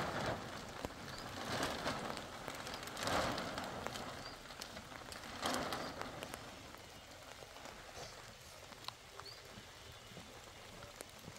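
Clear plastic sheeting rustling and crinkling as it is pulled and smoothed over a wooden pole, in several loud swells during the first half, then a quieter steady hiss.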